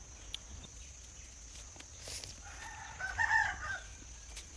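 A rooster crowing once, a little past the middle.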